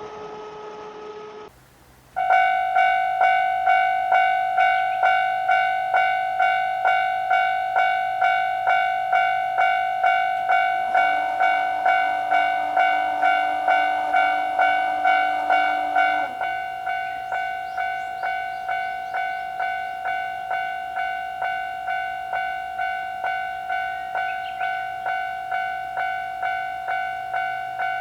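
Japanese level-crossing warning bell ringing its electronic "kan-kan" tone in steady, evenly spaced strikes. It starts abruptly about two seconds in. A lower steady tone joins it for about five seconds in the middle, and the bell is a little quieter after that.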